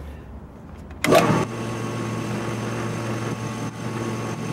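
Drill press switched on about a second in, its motor coming up to speed and then running steadily.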